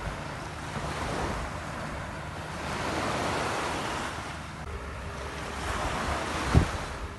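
Ocean surf washing onto a beach, swelling and falling away, with wind buffeting the microphone. A faint steady hum comes in about two-thirds through, and there is a low thump near the end.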